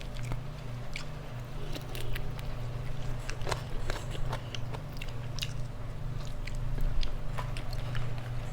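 Close-up chewing and biting of food, with scattered short crisp clicks from the mouth, over a steady low hum.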